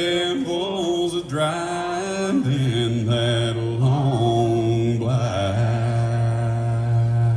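A man's deep bass voice singing live through a microphone, with the pitch bending early on. About two and a half seconds in it settles into a long, low held note.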